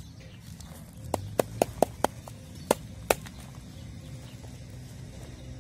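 Sharp knocks on the side of an upturned flower pot, about seven taps between one and three seconds in. The knocking loosens the packed soil so that it drops out of the pot.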